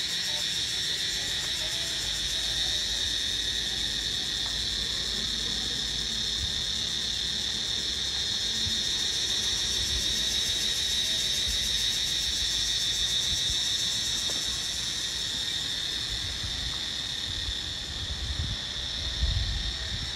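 Steady, high-pitched chorus of insects: several high tones held together without a break. A few low bumps come near the end.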